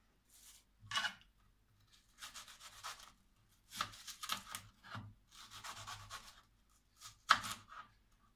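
Knife slicing through an onion on a cutting board into rings: a series of rasping strokes with short pauses between, the sharpest about seven seconds in.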